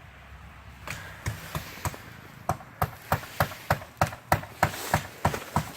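A run of sharp knocks or strikes, a few scattered at first, then settling about two and a half seconds in into a steady beat of about three blows a second.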